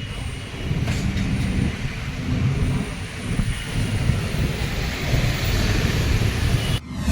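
Motor scooter engine running with a steady low rumble. It cuts off suddenly near the end as music comes in.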